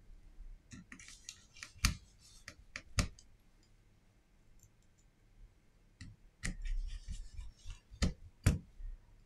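Small screwdriver and tiny screws clicking and tapping against a smartphone's frame, with short scratchy rubbing in between. There are about five sharp clicks, two of them close together near the end.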